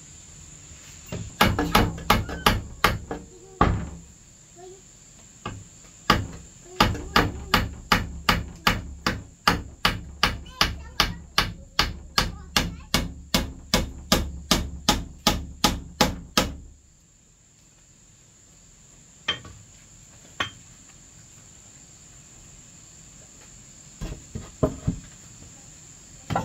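A hand hammer striking a wooden post-and-pole frame in a quick burst of blows, then a long steady run of about three strikes a second that stops about two-thirds of the way in, followed by a few single knocks. A steady high-pitched insect drone runs underneath.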